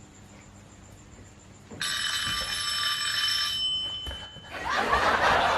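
Played-back ringing sound effect: a steady cluster of high tones that starts about two seconds in and lasts about two seconds. A louder, noisier sound starts near the end.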